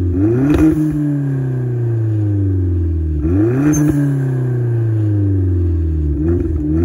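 The 2011 Hyundai Genesis Coupe 2.0T's turbocharged four-cylinder engine and aftermarket exhaust, heard from inside the cabin while driving, with a mellow note. The engine note sinks slowly, then dips and swings back up about half a second in and again about three seconds in, with a smaller swing near the end.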